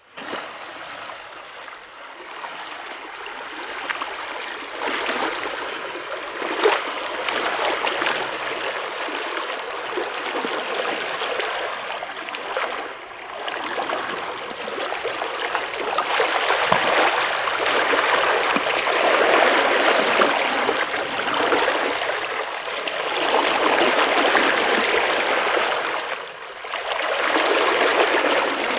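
Muddy floodwater from heavy rain rushing over flooded ground in a steady, loud flow, growing louder a little past halfway through.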